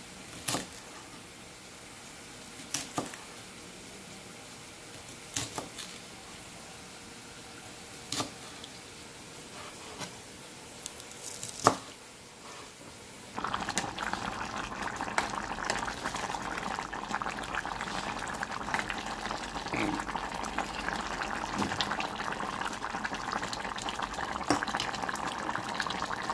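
Knife chopping through vegetable stalks onto a plastic cutting board, single sharp cuts every two or three seconds. About halfway through it gives way to a pot of soup boiling on the stove: a steady bubbling.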